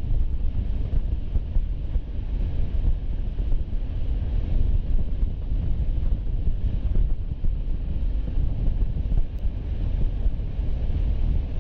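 Steady low rumble of a car on the move, with road noise and wind buffeting the dashcam microphone.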